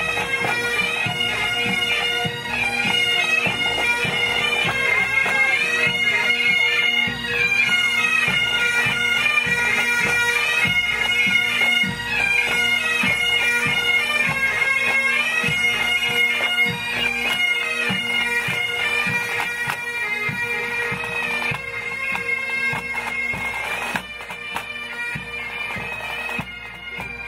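Pipe band playing a march: Highland bagpipes sounding steady drones under the melody, with the drums beating time. It gets somewhat quieter near the end.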